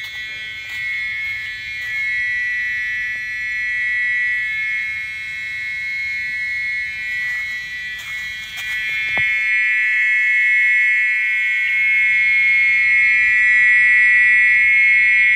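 Loud, continuous electric-sounding buzzing call of a nocturnal jungle animal, which the uploader takes for tree frogs, held at one steady pitch. It grows louder about two-thirds of the way in.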